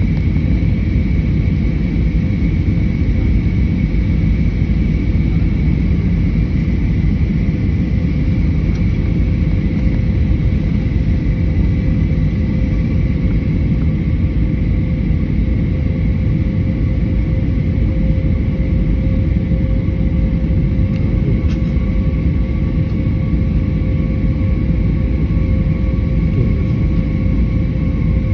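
Steady jet-airliner cabin noise: a constant low rumble of engines and airflow with a few faint steady whining tones above it.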